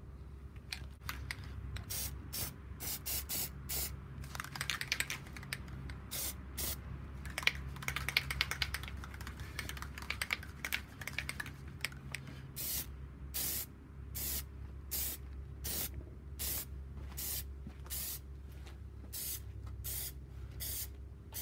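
Aerosol can of Plasti Dip rubber coating sprayed in many short hissing bursts, about one or two a second.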